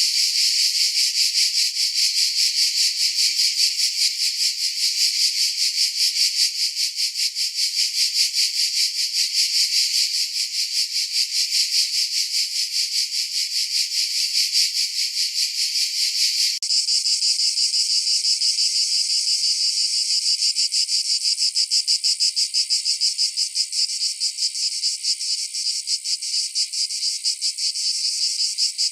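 Cicadas calling: a continuous, high, rapidly pulsing buzz. About two-thirds of the way through it cuts abruptly to a slightly different buzz, as from another cicada recording.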